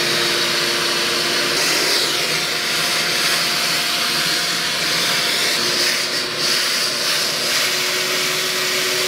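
Wet-and-dry suction vacuum running steadily, its hose nozzle sucking dirty flood water off a tile floor: a continuous rushing hiss over a motor hum that drops out early and comes back a few seconds later.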